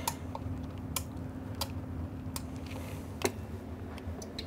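A low steady hum with about six light, sharp clicks spaced roughly a second apart.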